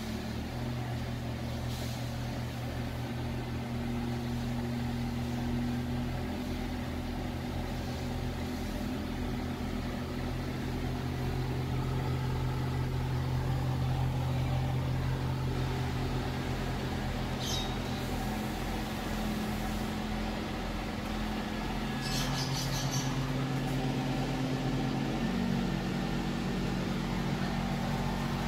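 Scania K320IA articulated bus engine running at low revs, heard from the driver's seat, its steady hum shifting up and down in pitch a few times as the bus creeps along. A couple of short high hisses come in the second half.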